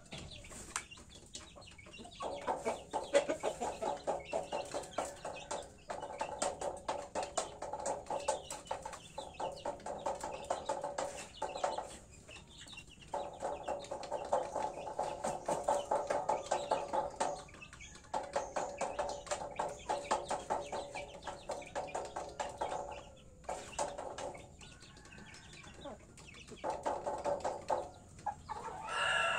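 Chickens clucking in long runs of fast, repeated clucks lasting several seconds each, with short pauses between runs. A louder squawk comes right at the end.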